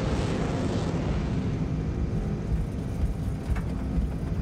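Jet airliner engines at high takeoff power, a steady rushing noise with deep rumble as the Boeing 737 accelerates along the runway.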